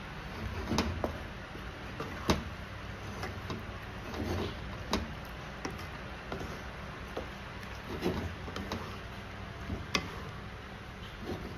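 Wooden spatula stirring and turning penne in a thick cream sauce in a skillet, with irregular knocks and scrapes of the spatula against the pan every second or two.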